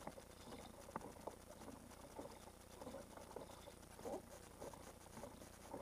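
Faint, irregular small splashes and taps of water lapping against a plastic kayak hull, with a sharper click right at the start and another about a second in.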